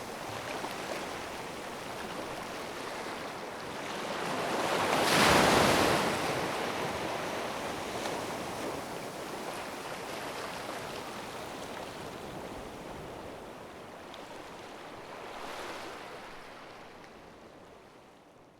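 Ocean waves washing on the shore: one wave breaks loudest about five seconds in, a smaller one comes near the end, and the surf then fades away.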